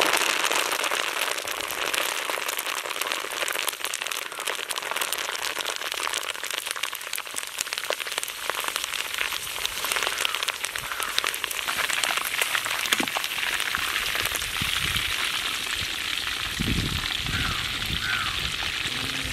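Curry leaves frying in deep hot oil in a large iron kadai: a dense, steady crackling sizzle. Low thuds come in over the last few seconds as the leaves are lifted out with a perforated skimmer.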